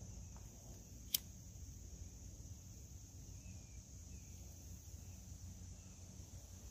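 A disposable lighter struck once, a single sharp click about a second in, over a faint, steady high-pitched insect trill.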